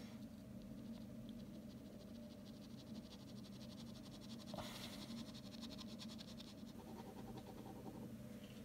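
Ballpoint pen scratching on drawing paper in quick, short back-and-forth hatching strokes, faint, as shading is laid down.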